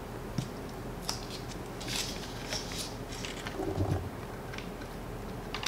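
Black iron pipe fittings handled and screwed together by hand: light metallic clicks and scraping on the threads, with a low knock a little under four seconds in.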